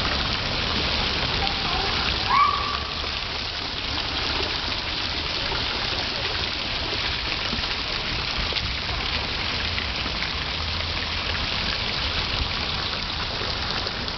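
Fountain water jets splashing steadily into a stone basin, an even patter like rain. A brief high tone about two seconds in is the loudest moment.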